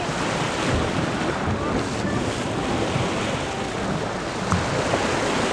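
Sea waves washing and breaking against shoreline rocks, with wind buffeting the microphone. A single short click sounds about four and a half seconds in.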